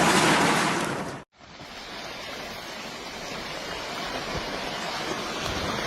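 A loud, steady rushing noise cuts off about a second in. After a moment of silence, a weaker steady rushing noise fades in and slowly grows, the sound of water or debris flowing in a flood or landslide.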